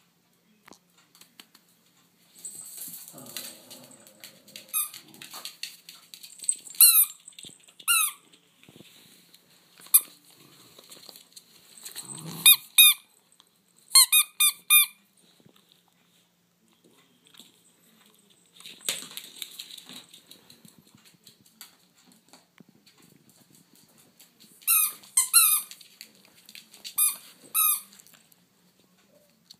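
A rubber squeaky ball squeaks again and again as a poodle bites down on it, in quick pairs and short runs of sharp squeaks, with rustling between them.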